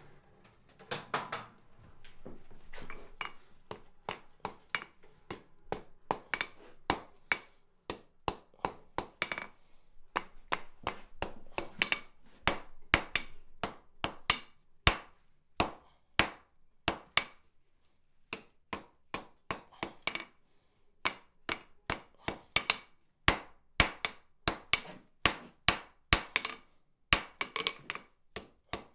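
Hand hammer striking a hot steel flat bar on an anvil: a long run of blows at roughly two a second, broken by short pauses, each blow ringing briefly.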